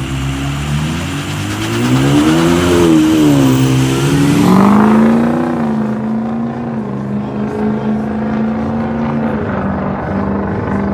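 A car engine revving: its pitch climbs and falls about two seconds in, climbs again a little after four seconds, then holds a steady note for several seconds before easing off near the end.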